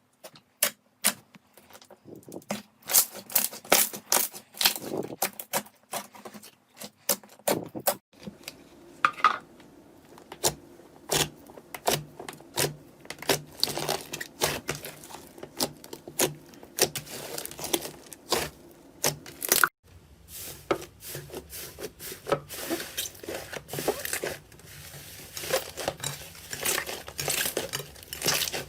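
Slime being squeezed, poked and stretched by hand, giving a run of irregular wet clicks, pops and crackles.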